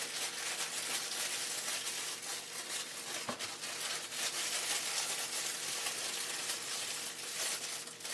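Plastic packaging of frozen waffles rustling and crinkling as it is handled, with a small tick about three seconds in.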